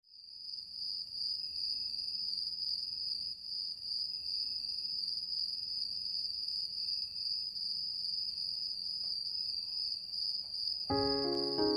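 Crickets trilling in one steady, unbroken high-pitched chorus. About a second before the end, instrumental music with held notes comes in.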